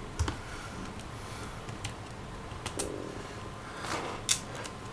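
Sparse small clicks and ticks of a screwdriver working small Phillips screws out of a laptop's bottom panel, with a louder little cluster of clicks about four seconds in.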